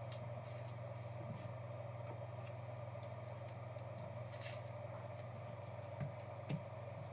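Trading cards being handled at a table: faint slides and small ticks, then two soft taps near the end, over a steady low hum.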